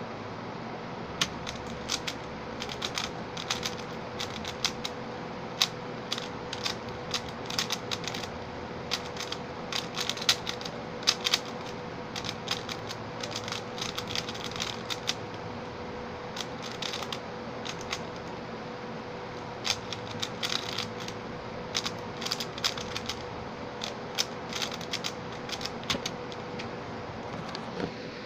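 Xin Lexin stickerless 3x3 speed cube turned rapidly by hand: quick flurries of plastic clicking and clacking as the layers snap round, coming in irregular bursts with short pauses between. A steady background hiss with a faint hum runs underneath.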